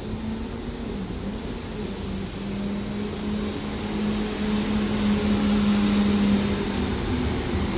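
Stadler FLIRT 1 electric multiple unit pulling out, its traction drive giving a steady low hum with a faint high whine, growing louder as it nears.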